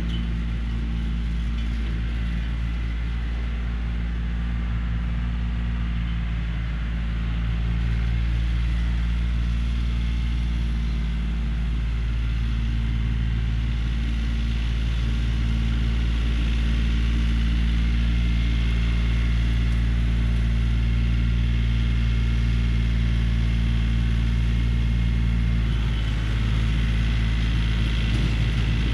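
Yanmar compact diesel tractor engine running steadily under load while it drives a PTO rototiller, a little louder from about eight seconds in.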